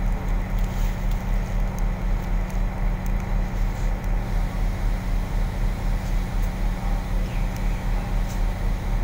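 Steady low engine drone and rumble heard from inside a moving vehicle's cabin, with a regular low throb a few times a second.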